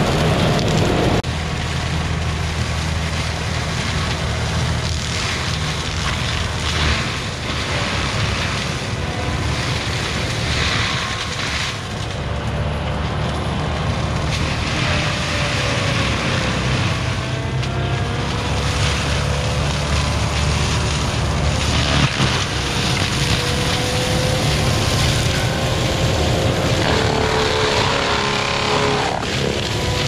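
Diesel engine of a Kubota SVL95 compact track loader running hard, driving a Promac HSM60 drum mulcher as it grinds through brush and deadfall. The drum's whine rises and falls with the load, and there is one sharp knock about two-thirds of the way through.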